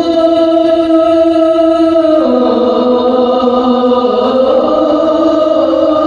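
A voice chanting in long held notes. The pitch steps down about two seconds in and rises again a little past the middle.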